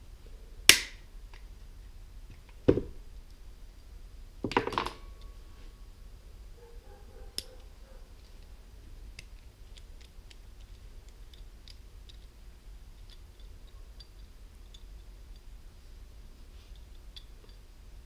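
Hands working a bar clamp and small pen-kit parts: a sharp click, a knock about two seconds later, and a short rattle of snaps about five seconds in, then a single click and faint scattered ticks as the small parts are handled.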